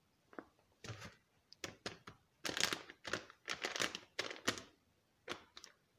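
Foil coffee bag crinkling as it is handled, in short irregular bursts of crackling and rustling.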